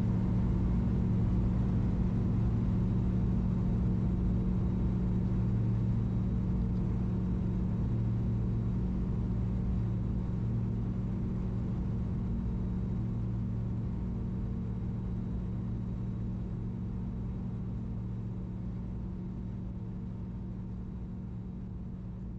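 BushCat light sport aircraft's engine and propeller droning steadily in flight, gradually getting quieter.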